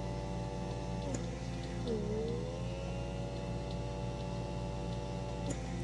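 Small suction motor of a handheld pore vacuum cleaner whining steadily. Its pitch dips a few times and slides back up.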